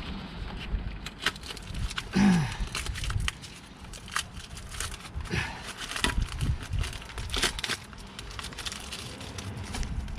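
Irregular clicks, taps and crinkling from handling a brake pad wear sensor wire and its clips while refitting them.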